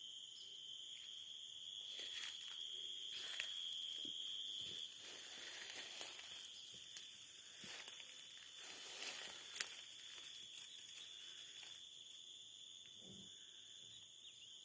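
Insects calling in a steady, high, unbroken chorus. Through the middle there is irregular dry crackling and rustling, loudest around nine to ten seconds in, which dies away about twelve seconds in.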